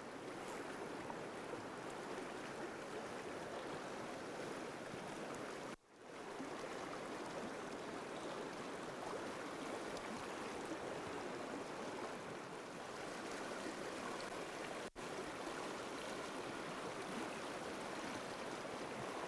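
Shallow rocky mountain stream rushing and tumbling over stones in riffles, a steady even wash of water. The sound cuts out briefly twice, about six seconds in and again near fifteen seconds.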